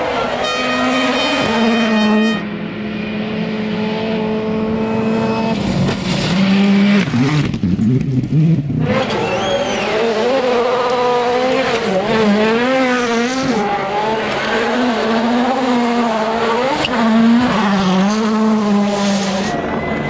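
Turbocharged four-cylinder rally cars at full effort on a gravel stage, several in turn. The engine note holds steady, then climbs and drops repeatedly as the drivers go through the gears and work the throttle through the corners.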